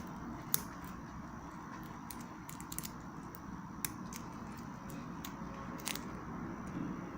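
A few small, scattered clicks and taps of handling, from the watches being moved about, over a low steady hum.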